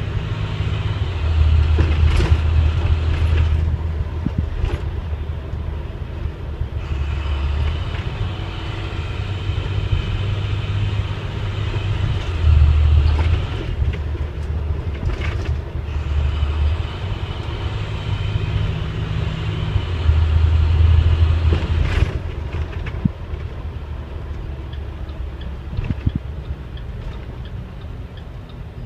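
Cab noise of a diesel school bus under way: a low engine drone with road and body noise, swelling and easing every few seconds as the throttle changes, and quieter over the last few seconds.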